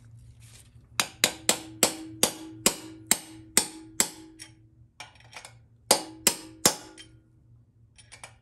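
A 3/8-inch cup plug being driven into a GM TH400 transmission case by hammer taps on a driver: nine sharp metallic taps at about three a second, a pause, then three more, each with a short ring. The taps seat the plug until it bottoms out on the center support, blocking off the reverse feed passage.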